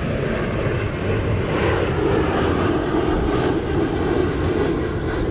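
Airliner flying over, its jet engines making a steady, continuous noise.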